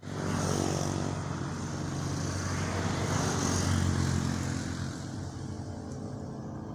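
A motor engine running steadily, growing louder to about four seconds in, then easing off.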